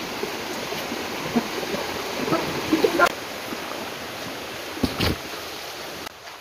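Shallow rocky stream running steadily, with a few scattered footsteps and rustles on top. The water sound cuts off suddenly near the end.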